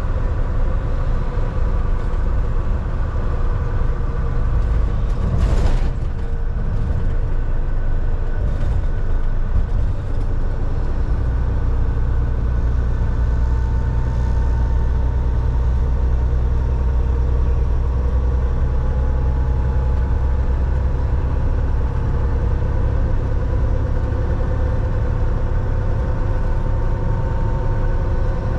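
Semi truck's diesel engine running with a steady low drone while driving, its note growing stronger for several seconds in the middle. There is one sharp knock about five and a half seconds in.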